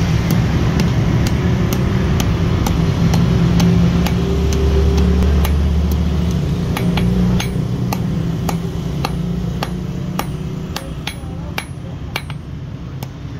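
Hand hammer striking a red-hot steel bar on an anvil, about two sharp metallic blows a second, during hand forging. Underneath runs a loud steady low machine hum that weakens about halfway through.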